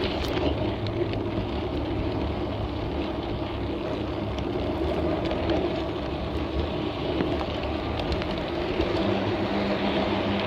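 Garden-railway model train running along the track: a steady rumble of its motor and wheels on the rails, with a few light clicks.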